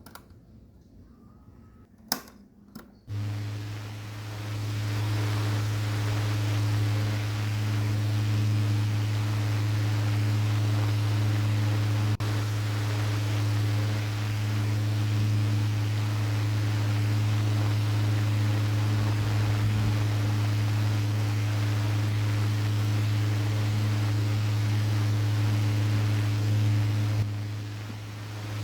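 Small battery-powered DC mini desk fan clicked on and running: a couple of sharp clicks, then the motor spins up into a steady low hum with the hiss of air from the blades. The level dips briefly near the end and picks up again.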